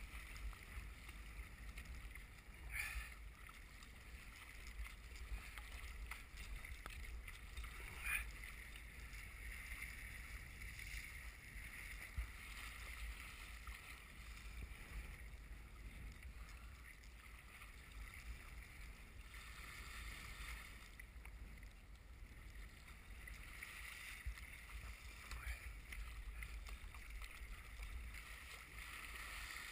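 Water sloshing and splashing around a sea kayak paddled through wind-driven chop, over a low wind rumble on the microphone. Two short, louder splashes come about 3 and 8 seconds in.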